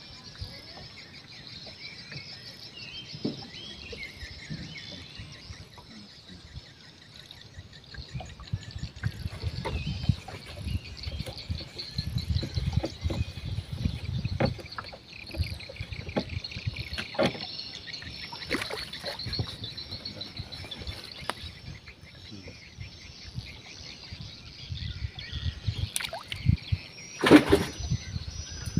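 Outdoor ambience of insects and birds chirping steadily, with low rumbling, scattered knocks and handling noises, and one loud knock near the end.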